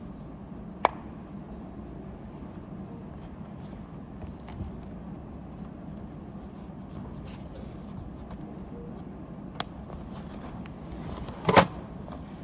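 Light taps and knocks of things being handled and set down on a desk, over a steady low room hum; the loudest is a short cluster of knocks and rustling near the end, as a paper bag is brought onto the desk.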